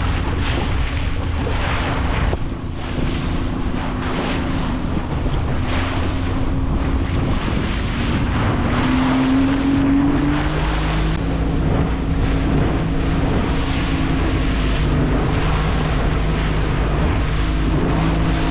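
Small fishing boat's engine running steadily, its note rising briefly about halfway through, with water rushing past the hull and wind buffeting the microphone.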